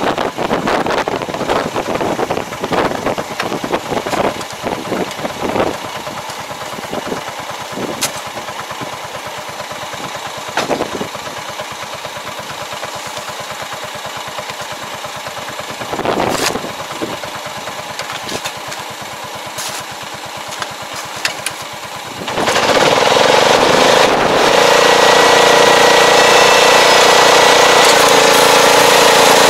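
Tractor diesel engine running at idle with uneven clatter and a few sharp knocks, then about three-quarters of the way through it revs up to a steady, much louder working speed and holds there.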